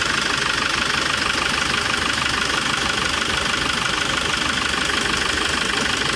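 Hyundai Porter's common-rail diesel engine running steadily on starting ether during an injector return-flow test. It will not keep running on its own fuel, which the mechanics put down to no fuel rail pressure.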